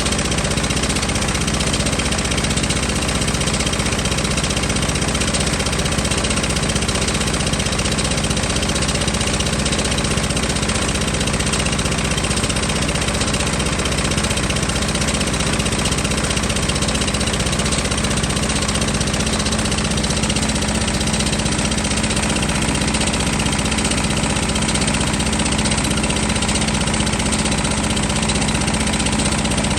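An engine running steadily at constant speed, with an even low throb.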